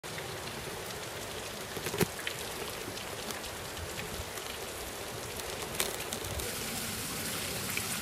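Steady hiss of falling water, with a few sharp ticks, one about two seconds in and another near six seconds.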